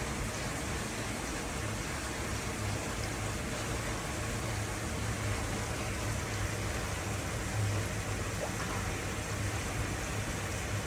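Steady rushing of running water, an even wash of noise with a low hum underneath.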